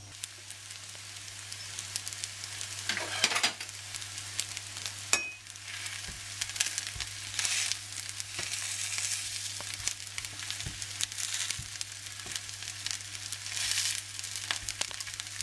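Green spelt (Grünkern) patties sizzling and crackling in hot oil in a nonstick frying pan. A spatula scrapes the pan several times as it presses and shapes the patties.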